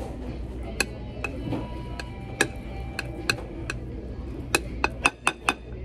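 Eating utensil clicking against a dish while mashed potatoes are stirred: scattered sharp clicks, with a quick run of them near the end.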